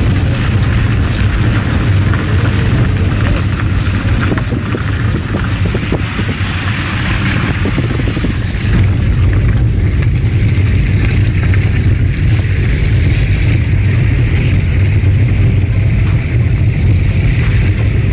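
Steady low rumble of a car on the move, heard from inside the cabin, with wind buffeting the microphone. A higher hiss, like tyres on a wet road, grows clearer about halfway through.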